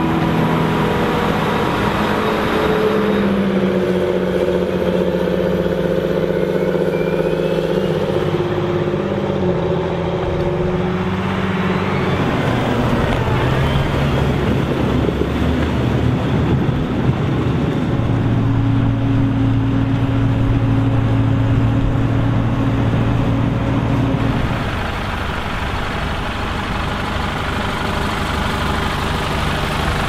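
Heavy farm diesel engines running hard in deep mud: first a Claas forage harvester, then tractors, with the engine note changing at each cut. In the middle there is a rougher, noisier stretch while a John Deere tractor's dual wheels spin and throw mud.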